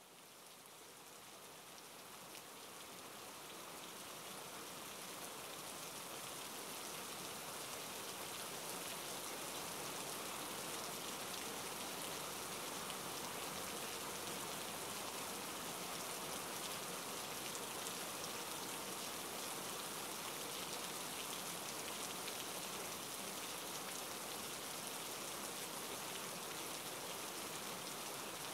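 Steady hiss of rain, fading in over the first few seconds and then holding even.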